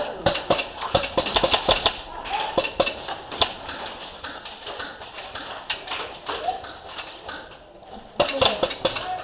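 Airsoft guns firing in bursts of rapid sharp clicks with metallic clinking, the heaviest burst in the first two seconds and further bursts about three, six and eight seconds in.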